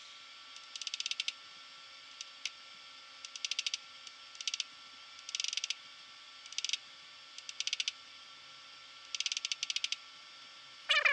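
Okamoto surface grinder: short bursts of rapid mechanical clicking, each under half a second, about once a second, over the machine's faint steady hum.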